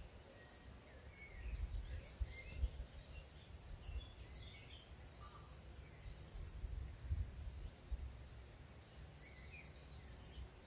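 Faint outdoor countryside ambience: scattered short chirps from small birds over an uneven low rumble.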